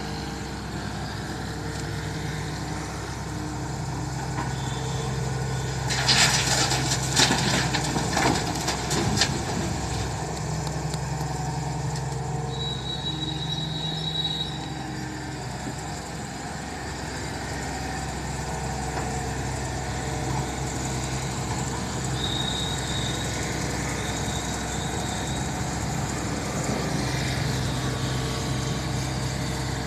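Hydraulic excavator's diesel engine running under working load, its drone rising and falling as the hydraulics work. About six seconds in comes a burst of clattering and knocks lasting about three seconds, and a brief high whine sounds twice.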